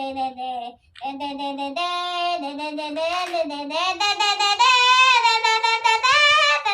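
A child's high voice singing a melody in long, held notes with vibrato, rising in pitch and getting louder in the second half.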